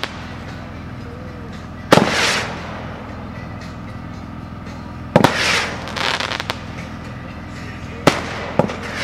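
A 12-shot missile firework fires one missile about every three seconds, three launches in all. Each launch is a sharp pop followed by a hissing rush about half a second long, and smaller pops and crackles come between the launches.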